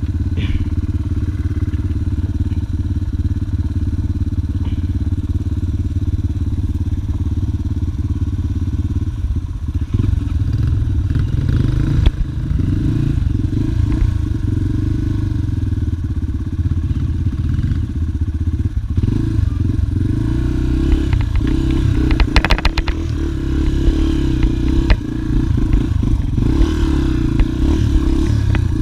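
Dirt bike engine idling steadily, then running under varying throttle as the bike moves off over rough ground. A cluster of clattering knocks comes about three-quarters of the way through.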